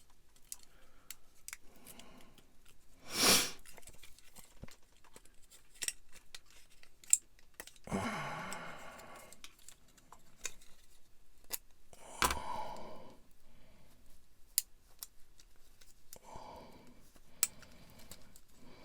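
Hands handling small plastic model parts and thin LED wires, giving scattered small clicks and snips with a few short louder scrapes and rustles as the wires are pulled through drilled holes.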